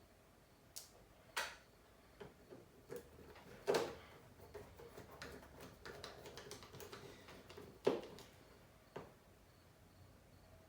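Scattered light clicks and taps of small tools, screws and phone parts being handled during a smartphone teardown, the loudest about four seconds in and again near eight seconds.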